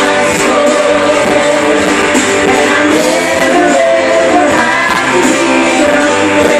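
Live worship band music, a woman singing lead over keyboard and band accompaniment, recorded on a phone.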